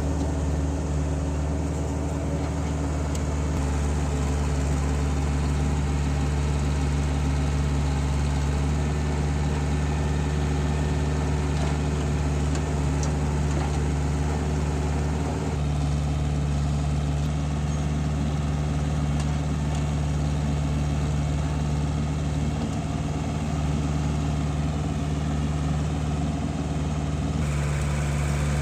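Diesel engine of heavy earth-moving or farm machinery running steadily, its tone changing abruptly about halfway through and again near the end.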